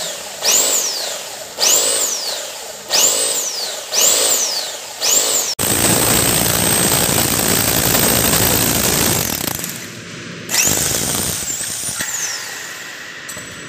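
INGCO rotary hammer drill run in short trigger pulses after greasing: five brief whines, each rising as the motor spins up and falling as it coasts down. Then it drills into concrete with a steady, dense noise for about four seconds, followed by one more spin-up and run-down.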